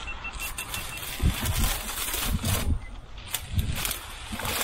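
Wind buffeting the microphone in uneven gusts, with tall grass and reeds rustling as they brush and sway close by.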